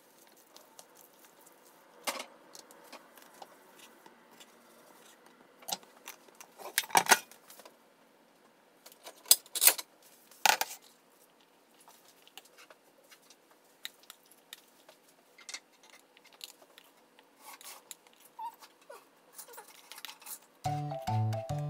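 Metal tongs and a fork clicking and clinking against each other and a plastic bowl while pasta is tossed and served, in scattered sharp strikes with quieter handling between them. Background music starts near the end.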